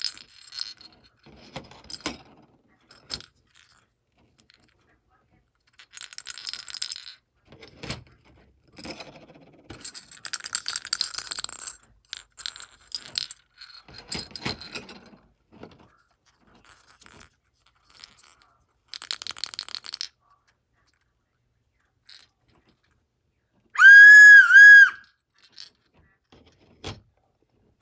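3D-printed plastic whistles on metal key rings being handled and set down on a table: clicks, scrapes and the jingle of the key rings. About 24 s in, one of the whistles is blown: a single loud, high whistle blast about a second long that wavers briefly.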